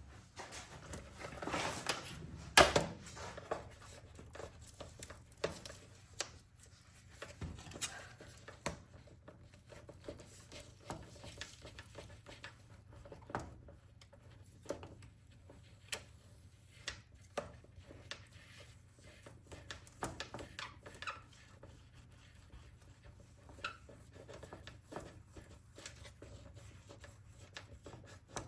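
Scattered light taps, clicks and rubbing of a rounded-edge tool being worked over a vinyl decal on a plastic number plate, pressing it down in place of a squeegee, with a louder knock about two and a half seconds in.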